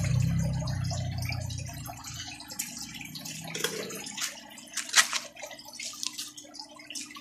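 Water dripping and splashing in a fish pond, in scattered irregular drops with one sharper splash about five seconds in. A low hum fades out over the first two seconds.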